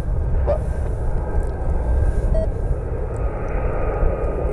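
Boeing 757-300 jet airliner on final approach, its engines a steady rumble and hiss that grows slightly louder in the second half as the aircraft draws nearer.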